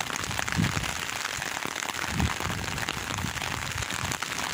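Heavy rain falling steadily, with a dense crackle of drops pattering on an umbrella held close overhead.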